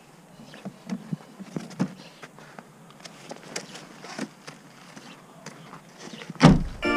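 Scattered light knocks and rustles of a child's balance bike being lifted out of a car boot and set down on snow. About six and a half seconds in, a single loud thump, the car's tailgate being shut.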